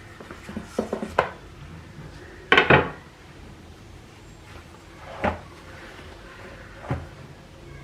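Kitchenware being handled: a quick run of light clinks about a second in, a louder clatter a little later, then two single knocks.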